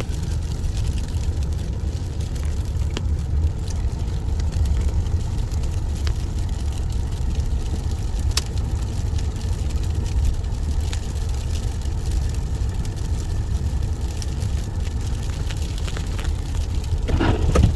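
Car's engine and tyre rumble heard from inside the cabin while driving slowly on a snow-covered road: a steady low rumble with a few faint clicks.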